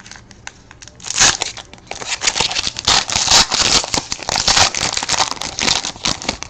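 Plastic wrapping on a 2012 Prime Signatures football card pack being torn open and crinkled. It starts about a second in and goes on as dense, rapid crackling.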